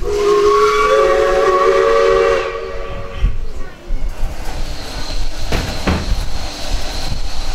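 Steam locomotive whistle blowing for about two and a half seconds, a chord of several steady tones, followed by the train's running noise with a few sharp knocks.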